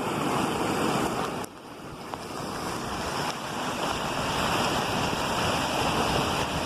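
Rushing water of a waterfall, a steady dense roar; it drops away suddenly about a second and a half in, then builds back up.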